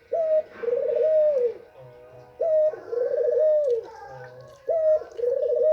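White female ringneck (Barbary) dove cooing: three repeated phrases about two and a half seconds apart, each a short clipped note followed by a long rolling coo. It is the call meant to rouse male doves.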